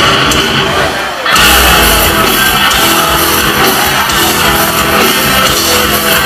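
Rock band playing live, loud, with distorted electric guitars. After a short dip about a second in, the full band comes in hard with heavy bass.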